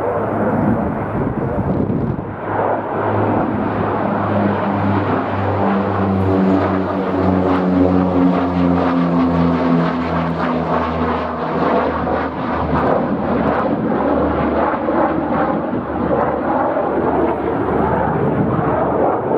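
Jet airliner passing low on its landing approach: a loud, steady engine rush, with a hum of tones from about two seconds in that slide slightly lower in pitch as it goes by and fade out around twelve seconds in.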